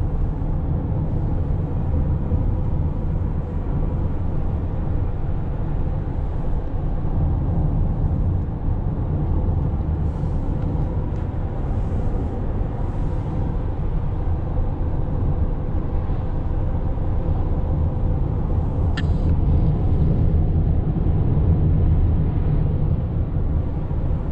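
Steady road and engine rumble heard from inside a Honda car's cabin while it drives along a highway. A single short click comes about three quarters of the way through.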